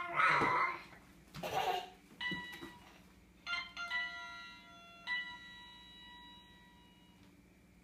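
Electronic key tones from a Hello Kitty toy piano sound book: about four single beeping notes, each held steadily and then cut off, as keys are pressed. Two short loud noisy bursts come first, in the opening two seconds.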